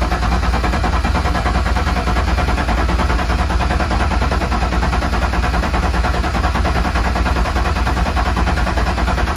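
Turbocharged BMW M50 inline-six being turned over by its starter motor at about 190 rpm without firing, the fuel pump relay pulled: priming the oil system of a freshly built engine while oil pressure builds. The cranking stops at the very end.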